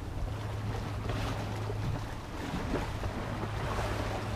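Sea waves washing against rocks, with wind buffeting the microphone and a steady low hum underneath.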